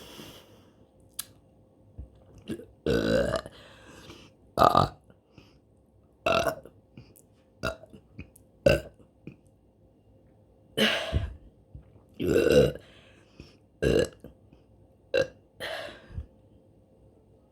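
A woman burping over and over: about ten separate burps a second or two apart, some short and clipped, a few drawn out to half a second or so.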